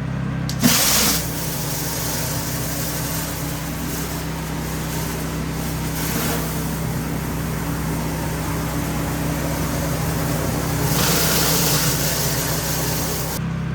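Pressure washer running steadily with its spray hissing against a painted porch floor. The spray starts about half a second in, grows louder near the end, then stops shortly before the end while the engine keeps running.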